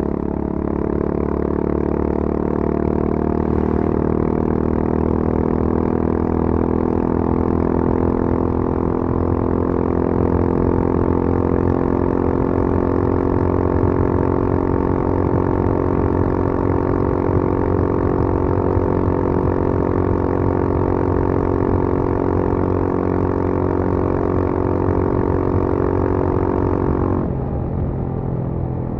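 Honda CB350 RS's 348 cc air-cooled single-cylinder engine pulling hard at full throttle through its stock exhaust, recorded onboard. Its note climbs slowly in pitch as the bike gains speed. Near the end the throttle is shut and the note drops away suddenly to a lower, softer run.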